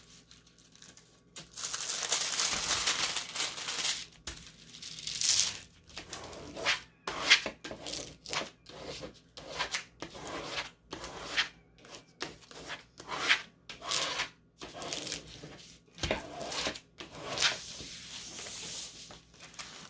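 Packaging being torn open by hand: a long tear about a second in, followed by irregular bursts of crinkling and rustling as it is handled.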